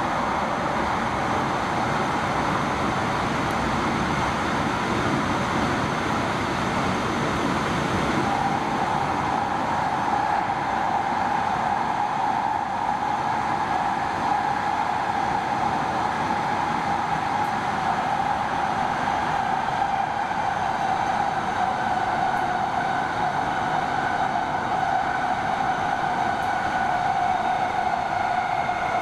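TriMet MAX light-rail car running in a tunnel, heard from inside the car: a steady rumble of wheels on rail. About eight seconds in, a whine sets in and slowly drops in pitch.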